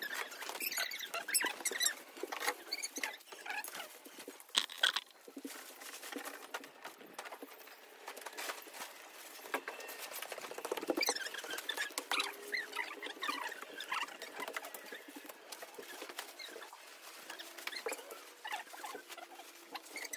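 Nylon dome-tent fabric rustling and crinkling as the tent is taken down and folded, with scattered clicks and knocks.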